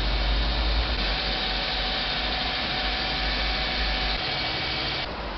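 Electric hospital bed's motor running steadily as it raises the bed; its low rumble drops away about four seconds in.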